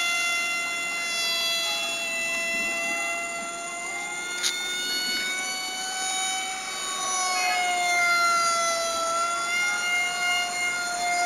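The 2826 2700 kV brushless motor and 5x5 propeller of a foam RC model jet running at high throttle in flight: a steady, high-pitched scream with a clear pitch that wavers slightly and dips about nine seconds in. A single sharp click about four and a half seconds in.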